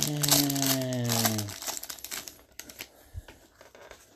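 Foil trading-card pack crinkling and tearing as it is pulled open by hand, with a low hummed tone from a man's voice falling slowly in pitch over the first second and a half. After about two seconds the rustle dies down to a few faint clicks as the cards are handled.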